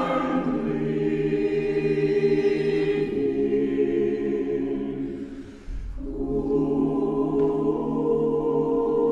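Mixed SATB choir singing slow, sustained chords. The sound fades down about five seconds in, and a new chord then comes in and is held.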